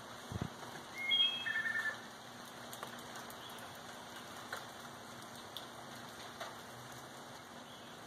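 Steady rain falling, with scattered drips. About a second in, a bird gives a quick burst of short, high chirps. There is a soft low thump just after the start.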